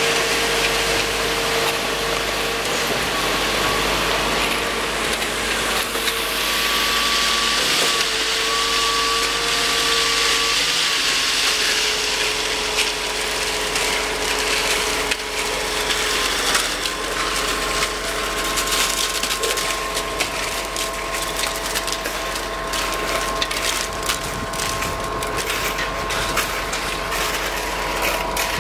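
Concrete pump and transit mixer truck running steadily while pumping concrete, with a steady mechanical whine that shifts in pitch a few times. Irregular clicks and knocks build up over the second half.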